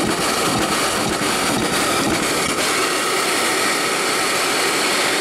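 Steady loud hiss of steam and water spraying from the opened drain valves of a small steam engine as it starts up, blowing condensed water out of the cylinder. A few irregular low knocks come through in the first couple of seconds.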